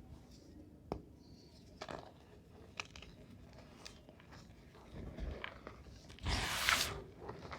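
Reformed gym chalk blocks crunching and crumbling in the hands: scattered short crackles, then a louder, longer crushing crunch about six seconds in.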